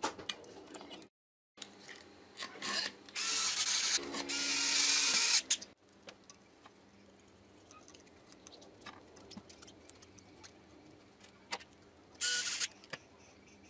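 Metal parts being handled and fitted: a circular saw's copper-wound stator pushed into its aluminium motor housing, with a long grating scrape about three seconds in. Scattered light clicks follow, then a short rasp near the end as the wires are handled.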